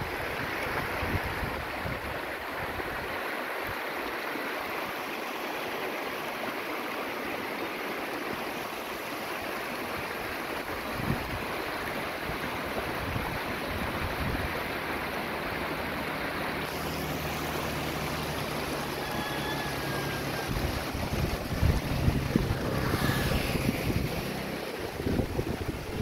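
Shallow river rushing steadily over stones and riffles, with wind buffeting the microphone in gusts. Past the middle, a low steady hum joins in, and a brief swish passes near the end.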